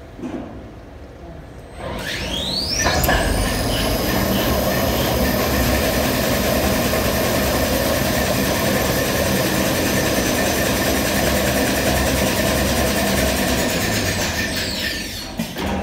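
Automatic toilet paper and kitchen towel converting line with flexo printing units speeding up: a rising whine about two seconds in, then a steady loud run of rollers and drive. Near the end the whine falls away as the line slows under its variable-frequency drive and electronic braking, with a few knocks.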